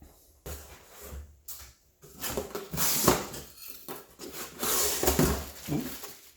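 Rustling and bumping of cardboard and plastic packaging as a printer box is opened and its contents pulled out, in irregular bursts that pick up about two seconds in.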